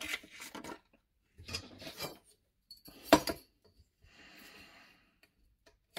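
Circle-cutter tools and cut paper being handled on a work surface: rubbing and scraping, one sharp click about three seconds in, and a scratchy rasp lasting about a second shortly after.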